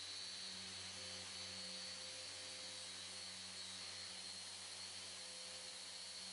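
Eccentric sander with an 80-grit disc running in continuous-rotation mode, stripping paint to bare metal on a car's steel fender, with its dust extractor drawing through the hose. A steady hiss with a high whine over it, unbroken throughout.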